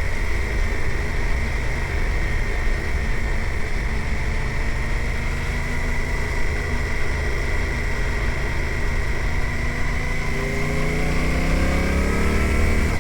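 Suzuki GSX-8R's parallel-twin engine running under way, with wind rumble on the microphone and a steady high-pitched whine. About ten seconds in, the engine note rises as the bike accelerates.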